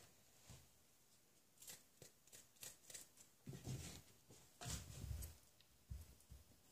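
A sharp kitchen knife cutting through raw acorn squash, giving a few faint, irregular crunches and soft knocks of the blade on a plastic cutting board.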